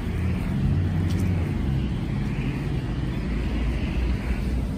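Outdoor street noise: vehicle traffic running past with a steady low rumble.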